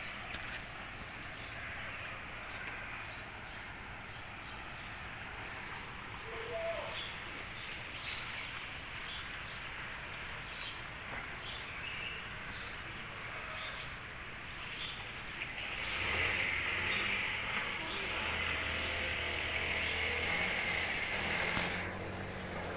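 Outdoor ambience of a rain-flooded street: a steady hiss with scattered light ticks and an occasional short chirp. About two-thirds of the way in, a vehicle engine's low hum and a louder hiss come in, then cut off abruptly shortly before the end.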